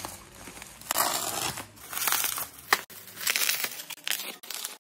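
Plastic bubble wrap crinkling and tearing in irregular bursts as it is slit with a utility knife and pulled apart, with one sharp click about halfway through.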